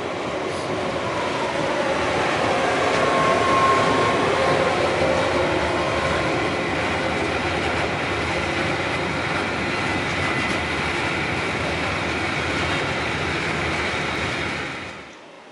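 Green Cargo Rc-family electric locomotive hauling a train of open freight wagons past, a steady rumble and rattle of wheels on rail that is loudest about four seconds in, with a brief wheel squeal around three seconds. The sound cuts off just before the end.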